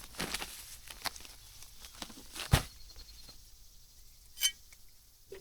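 Pea gravel and sand being spread by hand in a forge pit: scattered clicks and scrapes, with one sharp knock about two and a half seconds in and a short ringing clink about a second later.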